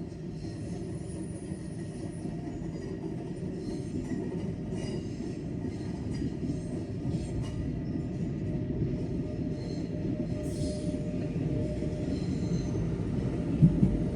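Train moving through the station: a steady low rumble that slowly grows louder, with faint high-pitched wheel squeals on the rails. A sharp clunk comes near the end.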